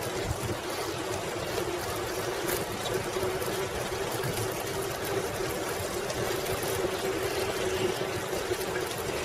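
Steady rolling noise of a 1995 Schwinn Classic Cruiser bicycle being pedalled along a paved path: tyres and drivetrain whirring.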